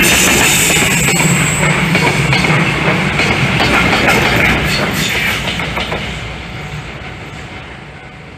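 Freight train wagons rolling past at close range, wheels clicking over the rail joints, the clatter fading away about five to six seconds in as the end of the train passes.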